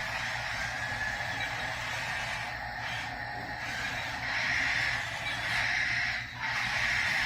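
Toy 1/24-scale remote-control battle tank running, a continuous whir from its small electric drive motors and plastic gears that gets louder in stretches and drops out briefly near the end.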